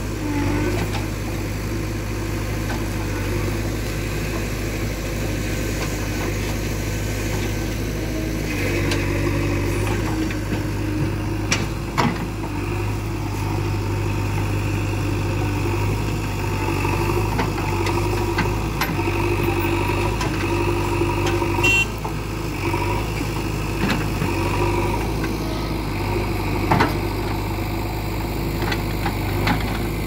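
JCB 3DX backhoe loader's four-cylinder diesel engine running steadily while the backhoe arm works, with a few short, sharp knocks.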